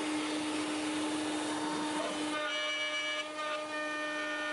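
CNC router spindle running with a steady whine while cutting wood. About two seconds in, the sound changes abruptly to an 8 mm end mill milling a pocket into the wooden blank, with several steady whining tones over the cutting noise.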